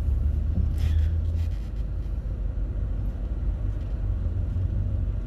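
Low, steady rumble of a car's engine and road noise heard from inside the cabin while driving, a little louder for the first second or so.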